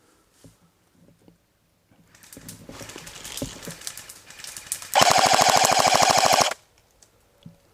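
Rapid scattered clicking of airsoft guns firing builds up over about three seconds, then a close A&K MK46 airsoft electric machine gun fires one loud full-auto burst of about a second and a half, around fifteen shots a second, and stops abruptly.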